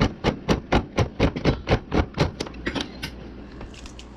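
Manual hand-crank can opener cutting around a can lid, clicking about four times a second, stopping near three seconds in.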